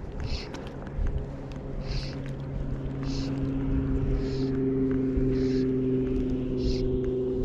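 A steady motor hum that grows louder about a second in, typical of a motorboat engine running at a steady speed. Over it come soft swishes about once a second.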